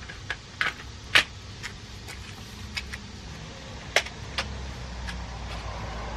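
Folding stroller being handled and set up: a string of sharp plastic and metal clicks and clacks from the frame, seat and latches, the loudest about a second in and another about four seconds in, over a steady low rumble.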